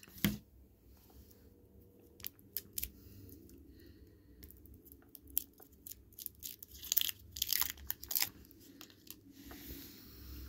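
Starburst fruit chew's waxed paper wrapper being peeled open by hand: scattered soft crinkles and crackles, busiest about seven to eight seconds in. A single sharp tap comes just at the start.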